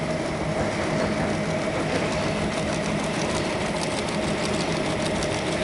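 YC520RY paper-cup printing machine running: a steady mechanical drone of rollers and drive with a constant hum, and a fine, rapid ticking over it in the later part.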